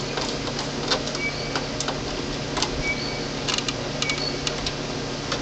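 Scattered small metallic clicks and ticks of a screwdriver and wires being worked at the terminals of a metal breaker panel, over a steady low hum.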